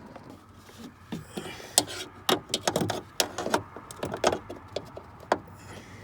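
Irregular knocks, clicks and rattles of metal parts inside a Scion tC door as the door hinge check arm is worked loose by hand. They start about a second in, come thickest in the middle, and end with one sharp knock.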